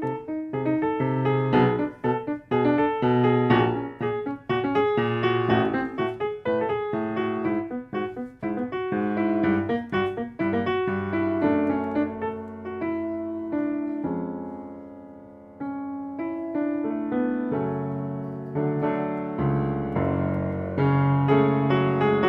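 Background piano music: a steady run of notes over bass notes, quieter for a stretch around the middle before growing fuller again near the end.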